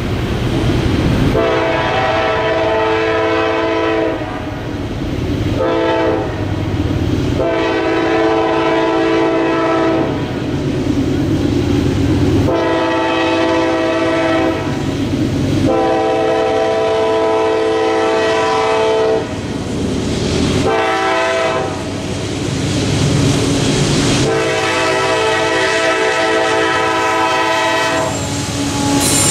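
A GE AC44CW freight locomotive's air horn sounds a chord in long and short blasts, the grade-crossing warning pattern of long, long, short, long. The locomotive's diesel rumble swells near the end as it reaches the crossing.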